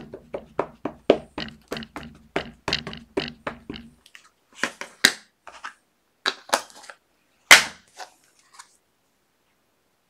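Rubber stamping on a tabletop: quick repeated taps, about four a second, of a stamp being inked on an ink pad, stopping about four seconds in. A few separate, louder knocks follow, the loudest a little after seven seconds in.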